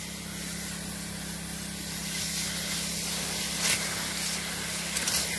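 Orchard spray lance hissing steadily as it sends a fine mist into apple-tree foliage, over a steady low hum. The hiss flares louder briefly about two-thirds of the way through and again near the end.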